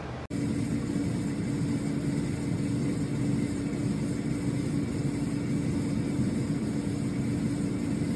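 Ninja Max XL basket air fryer running: its fan blowing with a steady whir and a constant low hum.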